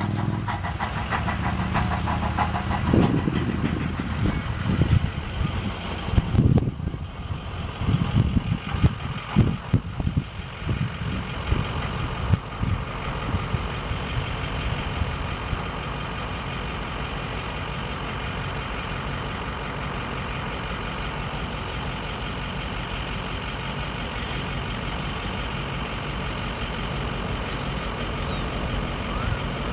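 Steady low engine rumble from an approaching train's locomotive. In the first third it is broken by irregular low thumps.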